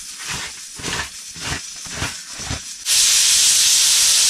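Spoon stirring in a cooking pot over the fire, about eight short scraping strokes, then about three seconds in a sudden loud, steady hiss of steam from the pot.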